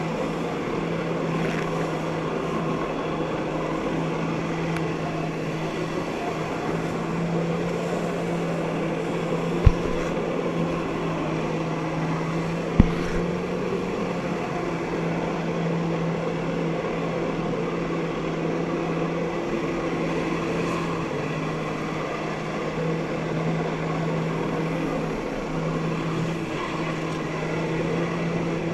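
Personal watercraft engine running steadily under load, its jet pump driving water up the hose to a flyboard, heard from on board as a constant drone. Two sharp knocks, about ten seconds in and again about three seconds later.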